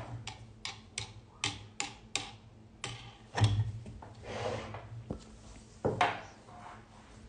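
An embroidery hoop being taken out of its hoop stand: a run of sharp clicks, about three a second, then a louder knock, a soft rustle and a second loud knock near the end.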